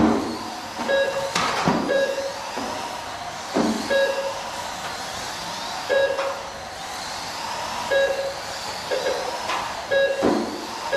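Mini RC race trucks running laps on an indoor asphalt track, their electric motors whining up and down in pitch as they pass. Short electronic beeps from the lap-timing system sound every second or two as trucks cross the line, and a few sharp knocks stand out, near the start, about three and a half seconds in and near the end.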